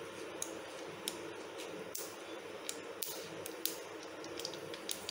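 Mustard seeds spluttering in hot coconut oil in a kadai: a steady soft sizzle with irregular sharp pops, several a second, as the seeds burst.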